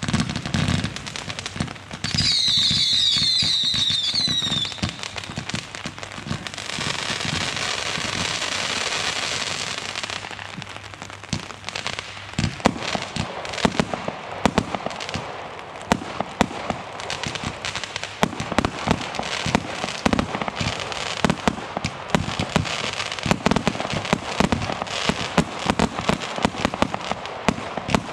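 Consumer fireworks going off. First come several shrill falling whistles, then a few seconds of steady hissing, and from about halfway on a dense run of rapid crackling cracks and bangs.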